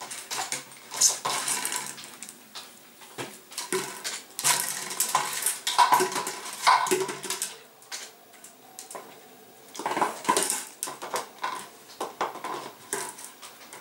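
A bottle clattering and scraping across a tiled floor in irregular bursts as a German Shepherd pushes it along with his nose.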